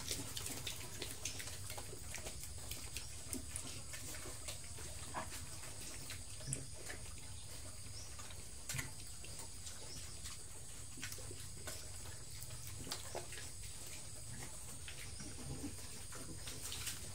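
Young pigs eating from a concrete trough: irregular small smacking and chewing clicks over a steady low hum.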